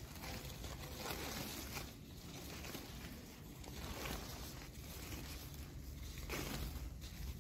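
Used woven polypropylene sacks rustling and crinkling as they are handled and flipped over, in several louder swishes.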